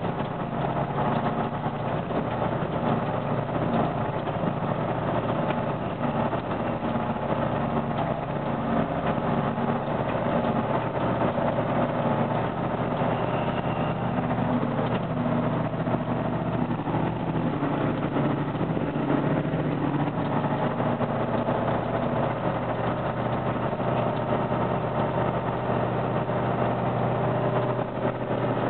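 Tatra 815 truck's diesel engine running steadily as the truck drives over a rough, muddy track, heard from the cab.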